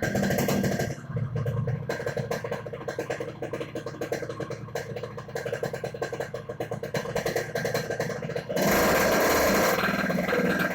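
Yamaha RX-King 135cc two-stroke single-cylinder engine running at low revs with a rapid crackling exhaust beat, the snoring yet crisp note called "ngorok". About eight and a half seconds in it revs up suddenly and holds louder.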